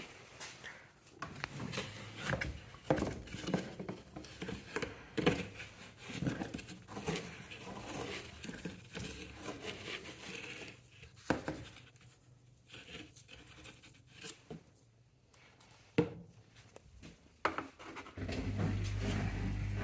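AEG washing machine on a 95° cotton wash of cleaning rags: soft irregular knocks, rustling and patter, then about 18 seconds in a steady low hum starts and holds.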